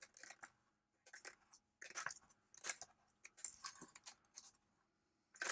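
Clear plastic zip-lock bag crinkling and rustling in short, faint bursts as small resin model parts are handled and slipped into it.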